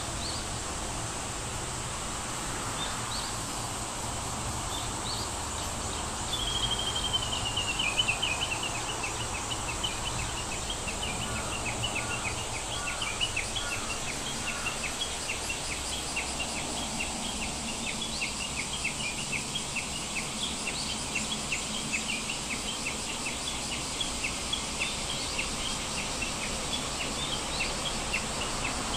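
Steady background hiss with high chirping over it. A short descending trill comes a few seconds in, then a long run of short chirps about twice a second.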